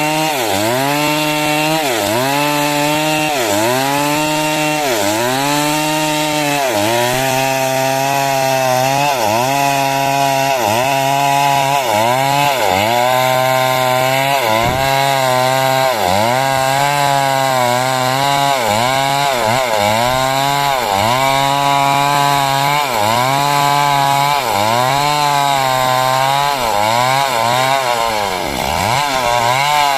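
Stihl MS 382 two-stroke chainsaw cutting wood at full throttle, its engine pitch sagging under load and recovering again about once a second as the bar works through the cut, with one deeper sag near the end.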